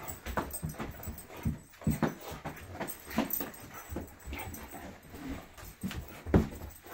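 Excited dog whining and whimpering in short bursts, amid the scuffling and knocks of a beagle scrambling over a person lying on the floor. A sharp knock about six seconds in is the loudest moment.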